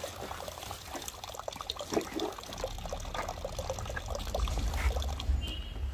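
Water trickling and pouring as a bottle is filled at a water source, with a low rumble in the second half.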